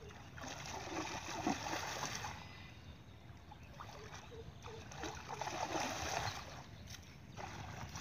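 Pond water splashing as a long stick is swept and slapped through it by someone wading, coming in bursts with quieter gaps between.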